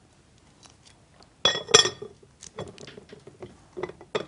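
Glass lid being set onto a glass bowl: two sharp ringing clinks close together about one and a half seconds in, then a few lighter knocks and taps as it is settled.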